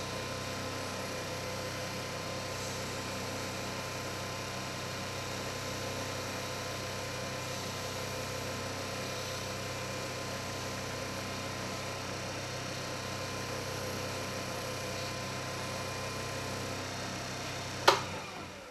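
Wood lathe running steadily at speed, a constant hum with several fixed tones. Near the end a sharp click, and the running sound falls away as the lathe is switched off.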